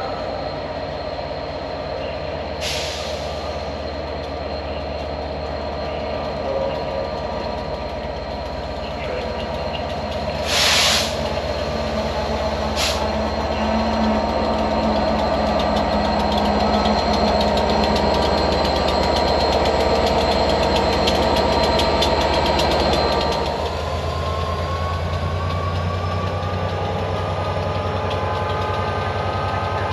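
Train running steadily, with three short hisses of air released from its brakes about 3, 11 and 13 seconds in, the second the loudest. The sound grows louder, then drops about 24 seconds in as a rising whine begins.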